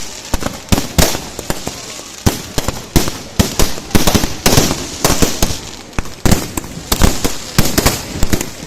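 Firecrackers going off in a rapid, irregular string of sharp bangs, several a second and often overlapping, with crackling between them.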